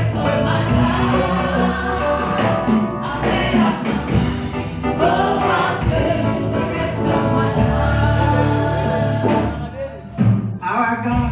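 A worship team and congregation sing a gospel song in Zulu, many voices together over a live band with keyboard and drums. Near the end the music dips for a moment, then comes back in loudly.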